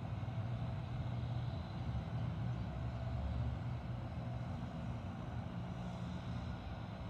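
Steady low outdoor background rumble, with no distinct events.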